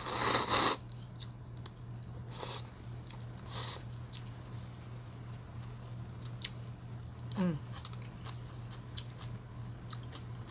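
A person slurping ramen noodles: a loud slurp at the start and two shorter ones a few seconds in, then chewing with small wet clicks and a short hum falling in pitch about seven seconds in. A steady low electrical hum sits underneath.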